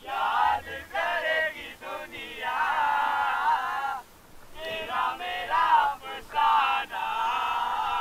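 Male voices singing together in phrases, like a choir or group chant.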